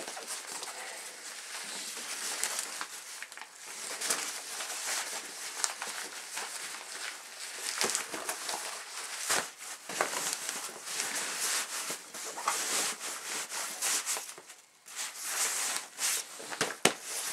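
Rustling and crinkling of the nylon fabric of a 5.11 Rush 72 backpack and the gear being stuffed into it by hand. Scattered clicks and brief knocks run through it.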